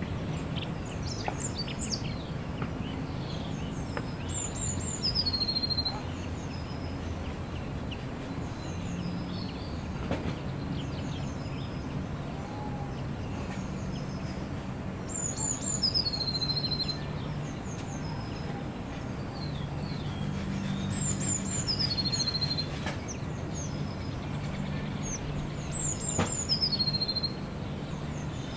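Small songbirds singing, one repeating the same short, high, falling phrase four times, several seconds apart, with scattered chirps between; a faint low steady hum lies underneath.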